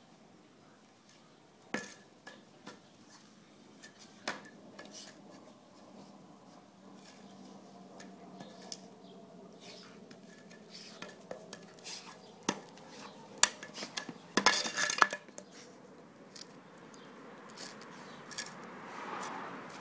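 A broom knocking and clattering as a Labrador puppy chews and tugs at its wooden head and handle: scattered sharp clicks and taps, with a quick flurry of them about three quarters of the way through and a soft scratchy rustle near the end.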